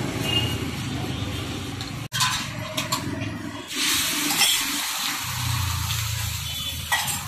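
Beaten egg sizzling in oil on a hot flat iron griddle (tawa), the hiss strongest about halfway through as the egg is poured on. A steady low rumble runs underneath.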